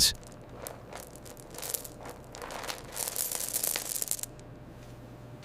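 Faint, irregular clicking and rustling, most of it between about one and a half and four seconds in, over a low hum.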